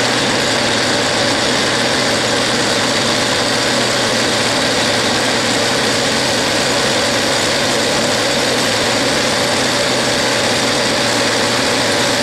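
Metal lathe running steadily while a carbide insert turns down the end of a steel threaded rod to about 3/8 inch diameter: a steady machining noise of the lathe's drive with the cut.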